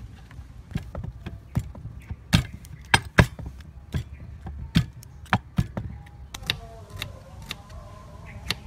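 Irregular clicks, taps and knocks of hands-on food preparation: a metal spoon scraping seeds from a green papaya, a wooden pestle pounding in a brass mortar, and a knife slicing onion on a wooden cutting board.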